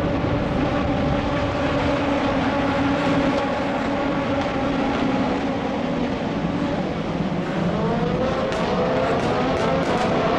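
Formula race car engines running on a circuit: a steady drone at one pitch, then, from about three-quarters of the way in, engine notes rising as the cars accelerate.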